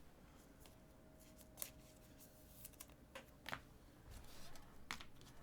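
Faint handling noise of trading card packs and cards: a handful of short, sharp clicks and snips scattered over near-quiet room tone.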